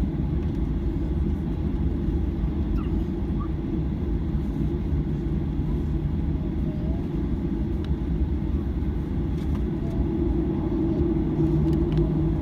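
Steady low rumble inside the cabin of a Boeing 737-800 with its CFM56-7 engines running, growing slightly louder near the end.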